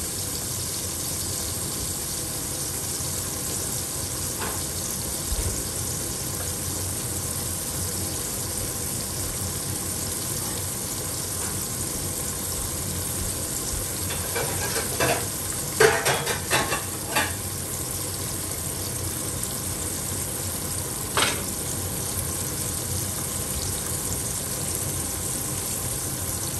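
Sea bass fillets frying in hot oil in a pan, a steady sizzle. A cluster of sharp clicks sounds about halfway through and one more a few seconds later.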